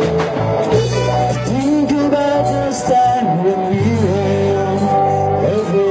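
Live Melanesian-style band music: a sung melody over steady bass notes, with a regular percussion beat.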